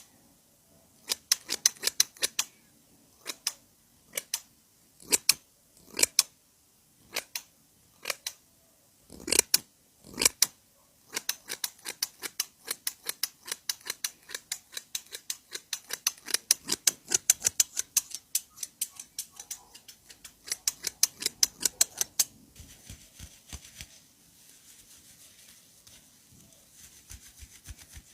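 Hair-cutting scissors snipping in short runs of several sharp snips, then a long, fast run of continuous snipping that stops about 22 seconds in, leaving a fainter, softer sound.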